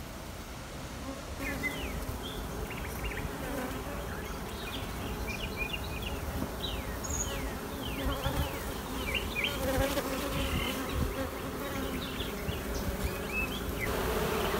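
Honey bees buzzing on an opened brood frame: a steady hum, with many short, high, falling chirps scattered over it. It grows a little louder near the end.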